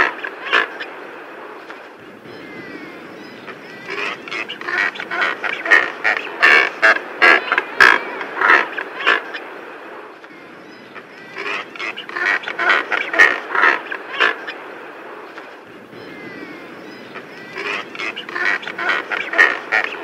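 European shag calling: bouts of rapid short calls, several a second, broken by quieter gaps of a few seconds.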